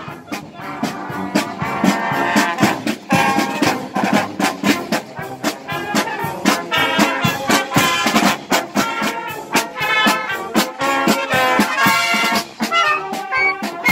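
Marching band playing a march: trombones and trumpets carrying the tune over a steady beat of marching drums.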